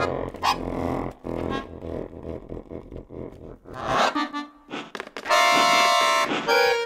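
Contemporary electroacoustic music for chromatic button accordion and tape. A dense low electronic drone fades about a second in, and scattered sharp clicks and a short noisy burst follow. From about five seconds in comes a loud, held, many-note accordion chord.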